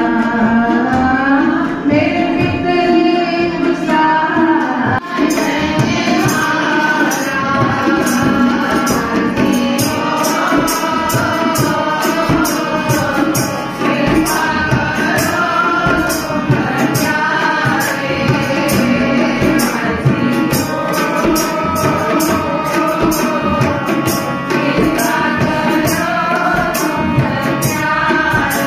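Sikh kirtan: women singing a devotional hymn together to harmonium accompaniment. From about five seconds in, tabla strokes keep a quick, steady beat under the voices.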